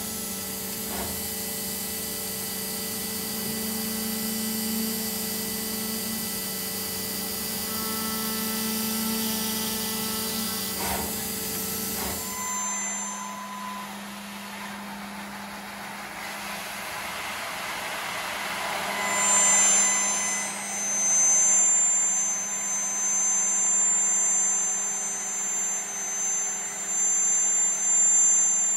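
Laguna SmartShop 3 CNC router's 12 HP spindle running and milling, with a steady whine over cutting noise. First it cuts a black sheet stock; from about twelve seconds in it cuts aluminium plate. In the aluminium cut, high whining tones join in and the level rises and falls as the cutter engages.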